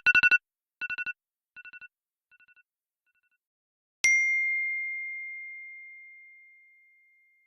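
Electronic phone ringtone: a rapid trill of two-tone pulses, repeated about every three-quarters of a second and growing fainter each time like an echo until it dies out. About four seconds in, a single bright ding strikes and rings out slowly over about three seconds.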